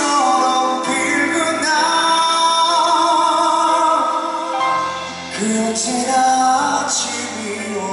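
A male singer sings a Korean ballad live into a microphone, holding long notes with vibrato over instrumental accompaniment. A low bass part comes in a little past halfway.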